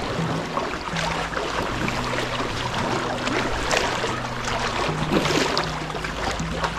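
Shallow seawater splashing and sloshing as it is waded through, over background music with slow, held low notes.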